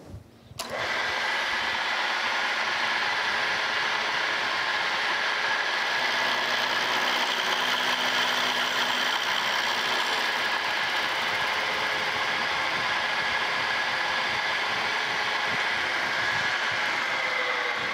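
Milling machine starting up about half a second in and running steadily, with an end mill cutting a wrench flat on a saw arbor shaft. Near the end the machine is switched off and its pitch falls as it winds down.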